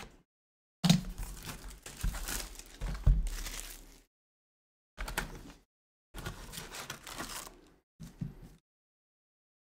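Wrapping torn and crinkled off a Topps Chrome Formula 1 trading-card box, and the cardboard box then opened, in several separate bursts. The loudest tearing comes in the first three seconds.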